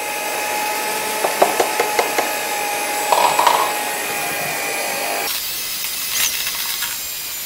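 Philips electric hand mixer running at low speed, its beaters whirring through brownie batter in a steel bowl as flour is added. A few short clicks come between one and two seconds in, and the motor's sound changes about five seconds in.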